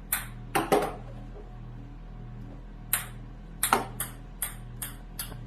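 Ping pong balls bouncing on a hard surface: a few sharp clicks near the start, then a run of quick bounces from about three seconds in, spaced roughly every half second.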